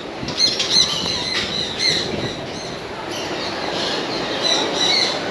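Captive birds giving short, high, repeated squawking calls, several a second at times, over a steady background rush of noise.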